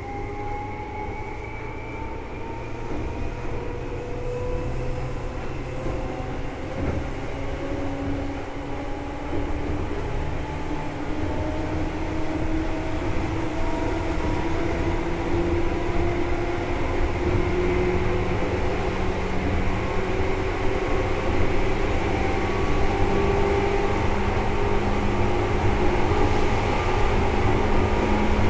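Seibu 2000 series electric train heard from inside the car, its field-chopper-controlled DC traction motors and gearing whining in several tones that rise slowly in pitch as the train accelerates. Wheel and rail rumble grows steadily louder underneath.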